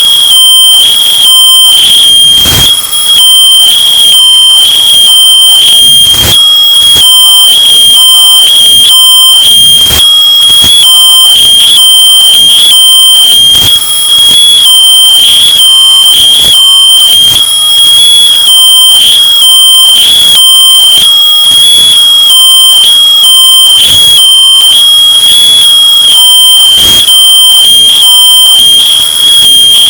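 Smoke detector alarm sounding a steady, shrill high-pitched tone without a break, played extremely loud, bass-boosted and clipped into harsh distortion with rapid crackling clicks throughout.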